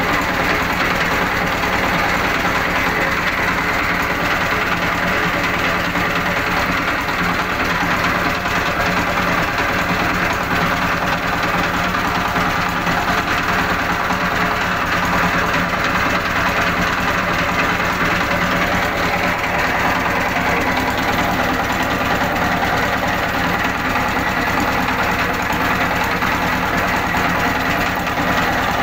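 Chinese diesel engine running steadily, driving a sprayer pump through V-belts, with an even knocking beat and no change in speed.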